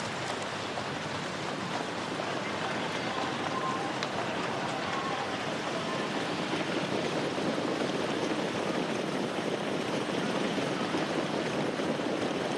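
Live racetrack ambience: a steady rushing noise from the field of trotters, their sulkies and the mobile starting-gate car moving along the dirt track. It grows a little louder toward the end as the field lines up behind the gate.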